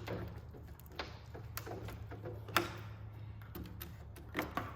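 A few light, spaced-out clicks and taps of a door lock and its metal parts being handled, over a low steady hum.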